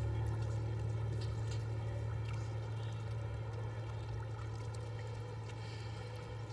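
A steady low hum that slowly fades, with a few faint ticks over it.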